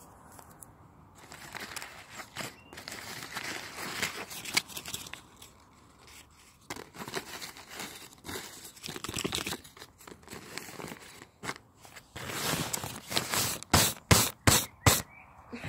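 A folded piece of paper being opened by hand: irregular rustling and crinkling, with a quick run of sharp, loud crackles near the end.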